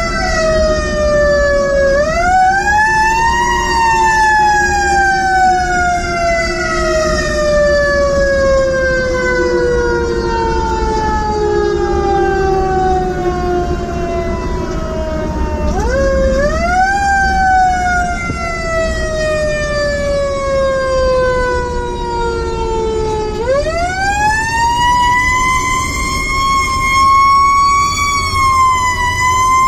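Federal Q2B mechanical siren on a 2018 Pierce Saber fire engine, heard from inside the cab. It is spun up three times, about two, sixteen and twenty-three seconds in. Each time it rises quickly and then coasts down in a long, slow falling wail; the last wind-up is held high. The truck's engine rumbles low underneath.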